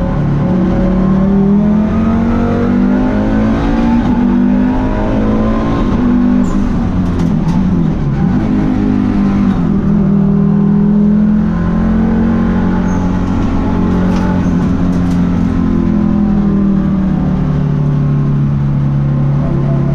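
Volvo race car's turbocharged five-cylinder T5 engine, heard from inside the cabin, pulling hard: the revs climb, drop at a gear change about eight seconds in, climb and hold again, then settle lower near the end.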